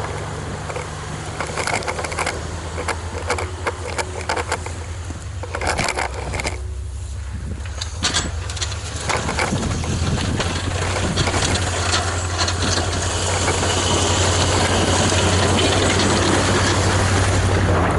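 Plow truck engine running steadily, heard from a camera mounted on the truck, with scattered knocks and rattles. A rushing noise builds over the second half.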